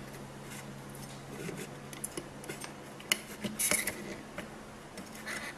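Soldering iron tip scraping and clicking against a circuit board's solder joints while it melts the solder on a capacitor lead to free it. There are small scattered metallic ticks and short scrapes, busiest a little past the middle, over a faint steady low hum.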